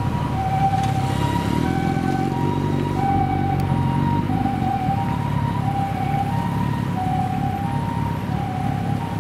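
Japanese ambulance's two-tone "pee-po" siren, alternating between a high and a low tone about every two-thirds of a second, over the steady rumble of road traffic.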